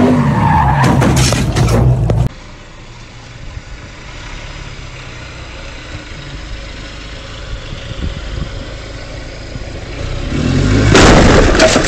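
A Chevrolet pickup's engine revving hard during a tyre-smoking burnout, cut off abruptly about two seconds in. A quieter steady hiss follows, then a loud noisy surge builds near the end.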